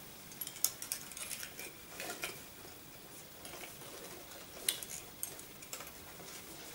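Jewellery and its packaging being handled and sorted: scattered light clicks and rustles, busiest in the first couple of seconds and again near the end.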